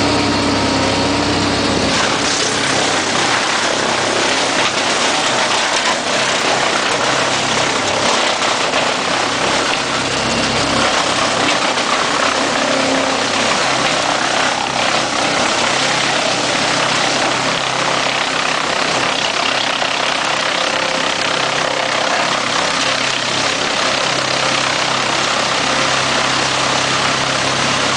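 Schliesing 550ZX forestry wood chipper running loud and steady. About two seconds in, its steady engine hum gives way to a dense, loud noise that carries on without letting up.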